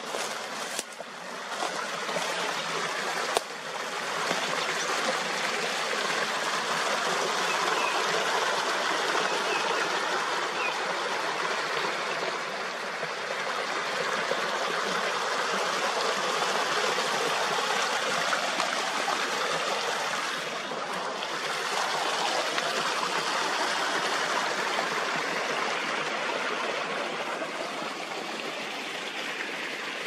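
Fast spring meltwater stream rushing steadily over its bed, louder after the first few seconds, with one sharp click about three seconds in.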